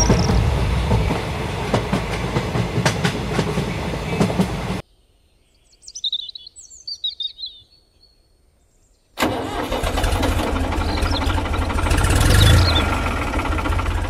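Tractor engine running with a rough low rumble. It cuts off about five seconds in, leaving a few quick high chirps, then starts up again about four seconds later and swells to its loudest near the end.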